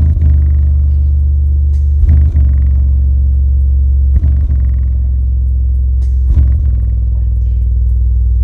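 Two CT Sounds Meso 8-inch subwoofers in a ported box playing loud, steady deep bass inside a hatchback's cabin, with a short hit about every two seconds.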